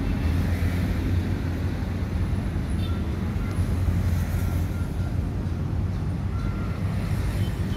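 Steady low rumble of an electric commuter train approaching in the distance, blended with background city traffic.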